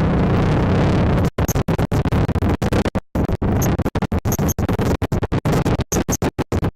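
ATV engine and riding noise through a helmet camera's microphone, steady for about a second, then breaking up into rapid, irregular dropouts where the sound cuts out and back in dozens of times, giving a choppy, stuttering effect.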